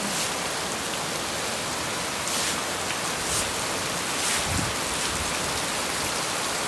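Heavy rain pouring down onto a flooded street and rooftops: a steady, dense hiss of downpour with a few brief louder patters.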